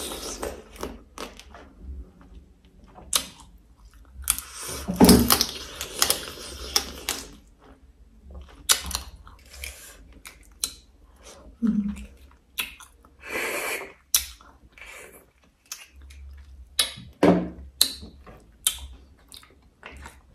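Close-miked eating of braised crab and boiled snails: chewing, with many sharp, irregular clicks and crackles of shell being bitten and handled, and a longer crackling spell about five seconds in.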